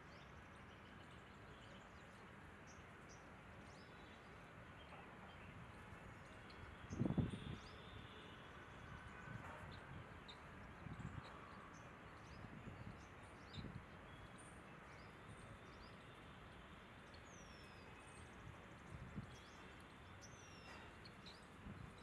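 Faint outdoor background with scattered distant birds chirping, short and high. A few soft low bumps come through, the loudest about seven seconds in.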